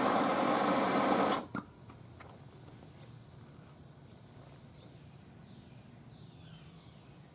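Loud hiss as a trail of cordite powder is lit, cutting off suddenly with a click about a second and a half in. After that only a faint steady background remains while the cordite burns slowly.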